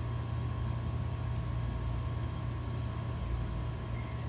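A steady low mechanical hum with an even hiss over it, from machinery running in the room. It holds level throughout, with no knocks or voices.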